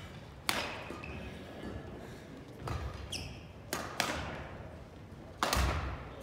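Badminton rackets striking shuttlecocks: about four sharp cracks that echo around a large gym hall, two of them close together midway. Low thuds of feet landing on the wooden court and a short sneaker squeak come in between.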